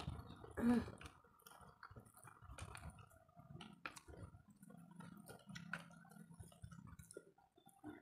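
Close-miked eating of fried noodles: soft wet chewing and slurping with many small clicks of forks against the noodles and plate. One short vocal sound stands out about a second in.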